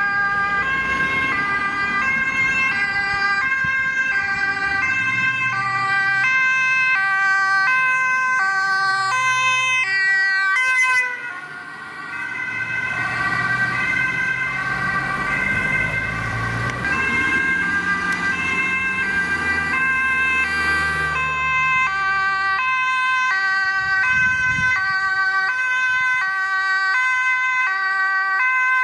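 Dutch ambulance sirens sounding two-tone, alternating between a high and a low pitch. About eleven seconds in the sound dips briefly before another siren carries on. Engine and road noise swell in the middle as an ambulance passes.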